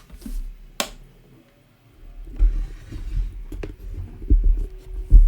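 A sharp switch click, then irregular light ticks and low thumps from a new desoldering station that will not start. The ticking comes from its power supply, the sign of a faulty unit that is dead on arrival.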